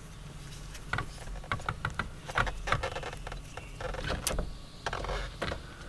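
Irregular small clicks and light taps of hand tools and parts being handled at the distributor, with one sharper click about four seconds in, over a faint steady low hum.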